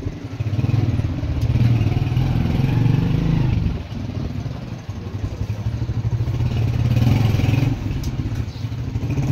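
A small motorcycle engine running at low speed, its note easing off about four seconds in and picking up again briefly near seven seconds.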